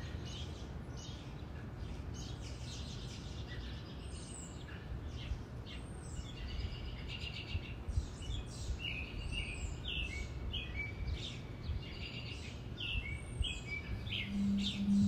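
Small songbirds chirping and calling, many short repeated chirps and arched whistles in quick succession, over a steady low background rumble. A low steady tone comes in near the end.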